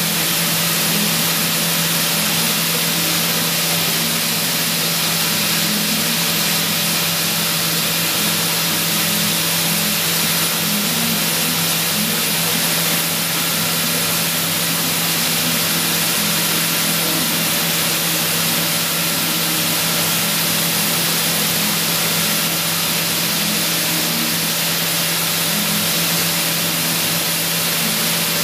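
CNC machining-center spindle at 20,000 RPM driving a miniature ball-nose end mill through 50 HRC hardened medium-carbon steel: a steady machining whir and hiss with a thin high whine.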